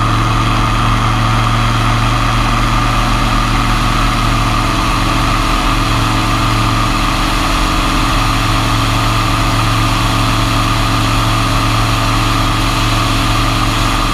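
Super Petrel amphibious biplane's engine and propeller droning steadily in level cruise, with wind rushing over the wing-mounted camera.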